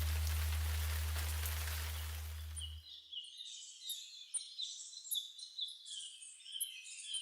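Rain falling, a steady hiss with a low hum, cuts off suddenly about three seconds in. It gives way to small birds chirping, many quick high chirps in a row.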